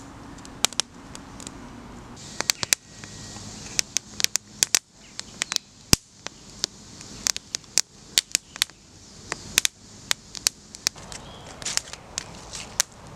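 Small fire of split-stick kindling crackling, with frequent sharp, irregular pops.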